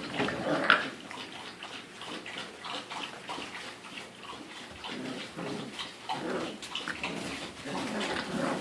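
Five-week-old pit bull puppies making small whimpers and yips amid irregular scuffling and clicking noises.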